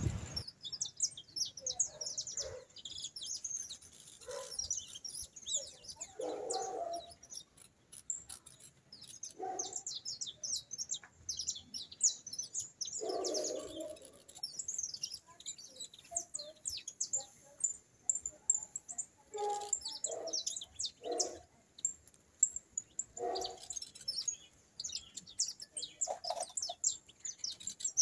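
Several wild birds calling in a tree: a dense, continuous stream of short high chirps, with a lower, shorter call breaking in every few seconds.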